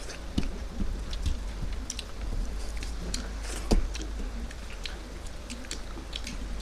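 Eating by hand: scattered small clicks and smacks of fingers picking through fish bones and rice on a plate, with chewing, one sharper tick a little past halfway, over a low steady hum.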